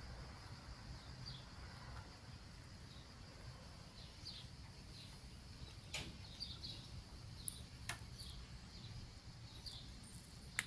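Faint, scattered short chirps of small birds over a low, steady background hum, with two sharp clicks, about six and eight seconds in.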